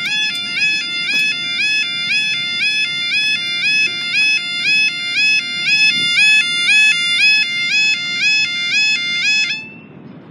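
UK level crossing yodel alarm (yodalarm) sounding its repeating warble of stepped electronic tones, warning road users of an approaching train while the barriers lower. It cuts off about nine and a half seconds in, once the barriers are down.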